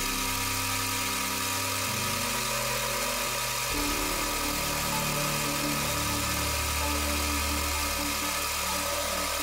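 9x20 metal lathe running steadily while its tool cuts the threads of a hardened steel ball screw, a steady machine hum with hissing cutting noise; the small lathe is struggling with the hardened steel. Background music plays underneath, its low notes changing about two and four seconds in.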